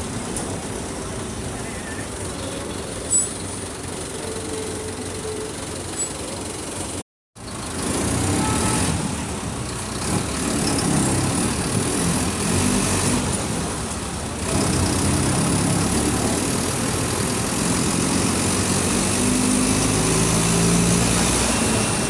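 Mercedes-Benz OF 1722M bus's diesel engine running at medium revs. It drops out sharply about seven seconds in, comes back louder, steps up in loudness again about halfway through, and rises in pitch near the end as it pulls.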